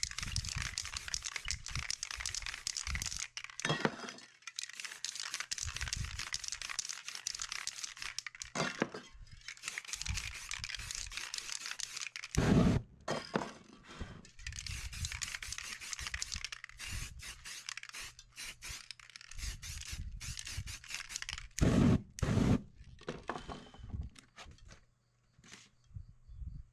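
Aerosol spray-paint cans hissing in repeated bursts onto a paper stencil and poster board, with paper rustling and scraping between sprays and a couple of louder thumps, about 12 seconds in and again about 22 seconds in.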